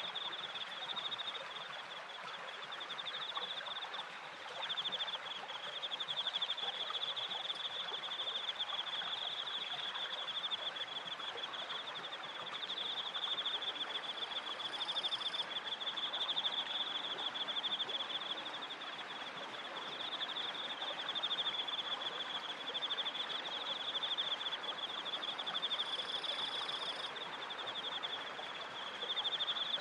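Crickets trilling without a break in a high, fast-pulsing chirr, over the steady splash and rush of water turning a wooden waterwheel. A couple of brief higher chirps come about halfway through and again near the end.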